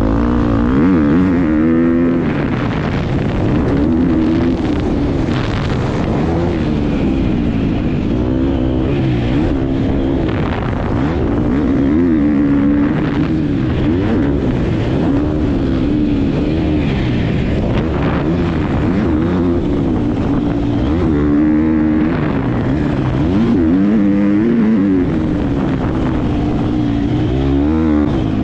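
Motocross dirt bike engine heard from the rider's helmet, revving up and falling back again and again as the bike accelerates, shifts and slows through the turns, with a rush of wind and noise over it.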